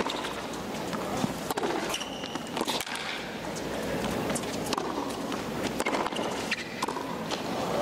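Tennis rally on a hard court: the ball struck back and forth off two players' racquets, a sharp pop about every one to one and a half seconds, with footsteps and a steady crowd-and-court background.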